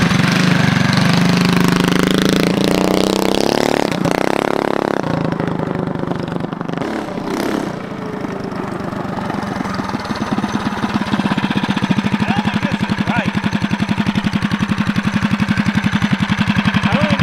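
Predator Ghost 212cc single-cylinder four-stroke engine revving up with a rising pitch for the first few seconds, easing off, then idling with a steady, even beat from about ten seconds in.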